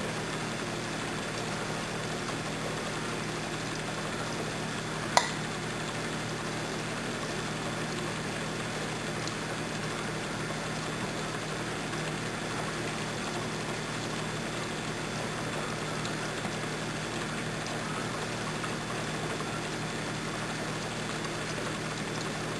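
Steady hiss and bubbling from an HHO hydrogen torch rig: the small flame burning at the torch tip while the gas bubbles through the water-filled bubbler column. A single sharp pop about five seconds in.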